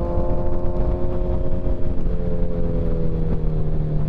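Suzuki Hayabusa's inline-four engine running at road speed, its note easing slightly down, with wind rumble on the microphone; the engine note changes about two seconds in.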